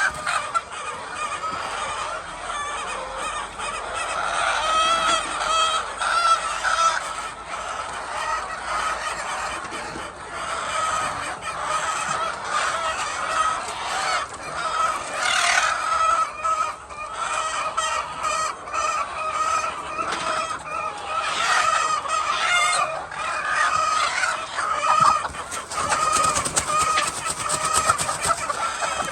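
A flock of chickens clucking and calling continuously, many birds at once.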